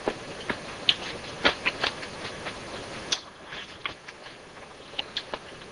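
Irregular small crunches and clicks of someone eating a lettuce and pasta salad, over a steady hiss.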